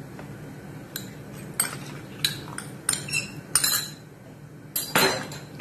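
A silicone spatula stirring custard in a pan, scraping and knocking against the pan's sides in about nine irregular clicks as the custard is kept moving so it thickens without lumps. A faint steady low hum runs underneath.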